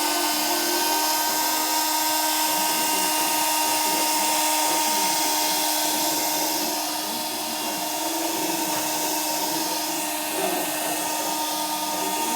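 Small battery-powered DC motor spinning a propeller inside a homemade water-bottle vacuum cleaner, running with a steady whine and rush of air. It gets slightly quieter about seven seconds in.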